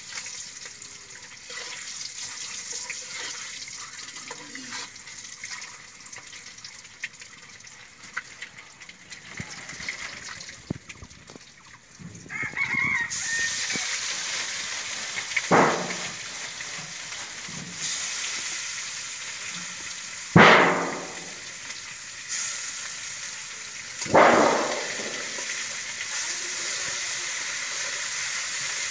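Whole boiled eggs frying in oil in a karahi, a steady sizzle that gets much louder about halfway through. A rooster crows three times in the second half; these are the loudest sounds.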